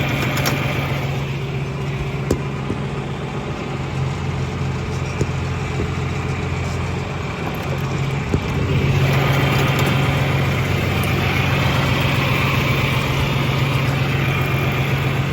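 Farm tractor engine running steadily at idle, growing louder about eight seconds in.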